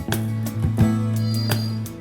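Background music led by plucked guitar, with sustained notes and a regular beat.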